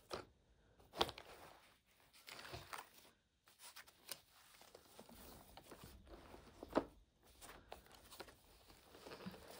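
Faint handling sounds of coloured pencils in a fabric pencil case: fingers brushing and tapping along the rows of pencils, with scattered soft clicks and rustles and one sharper click a little past the middle.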